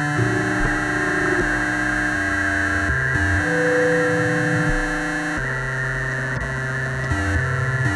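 Modular synthesizer patch playing: a harsh, noisy electronic texture over low notes that step from pitch to pitch every half second to a second, with a higher tone held briefly near the middle.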